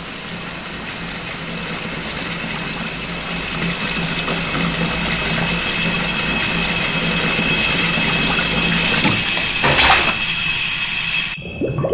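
Water running hard from a tap: a steady rushing hiss with a faint hum and a thin whine under it. It slowly grows louder, surges near the end, then cuts off suddenly.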